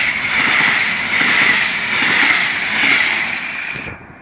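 Red passenger train passing close by: a loud rushing of wheels on rail with irregular low clatter, dropping away fairly suddenly as the last coach clears about four seconds in.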